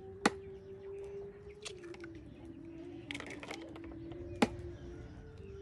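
Eggs being cracked on the rim of a plastic bowl: two sharp taps, one right at the start and one about four seconds in, with a run of small shell crackles between them. A steady low wavering drone sounds underneath.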